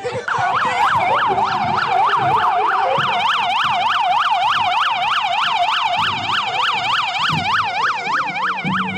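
Sheriff's patrol SUV siren in a fast yelp, its pitch sweeping up and down about four times a second.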